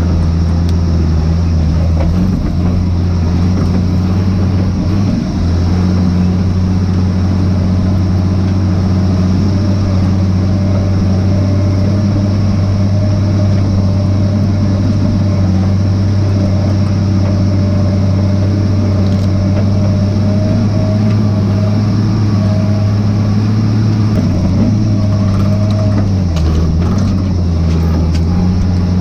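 Skidder's diesel engine running steadily at a low, even pitch, with a few brief dips in pitch near the end.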